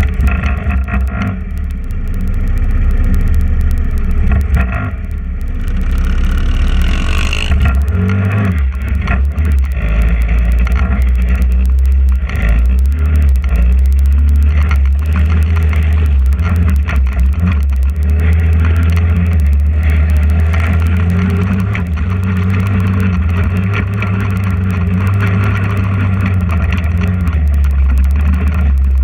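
TrailMaster 150 XRX go-kart's GY6 150cc single-cylinder four-stroke engine running under way, its pitch rising and falling with the throttle, with a brief rev about seven seconds in. Short knocks and rattles come through as the kart goes over rough dirt.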